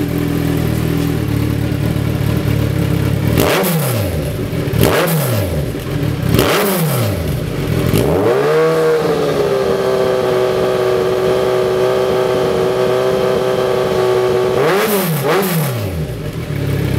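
Kawasaki Z1000 inline-four engine through a Lextek XP13C silencer, idling, then blipped three times, then raised and held at a steady high rev for about five seconds, then two more quick blips before settling back to idle.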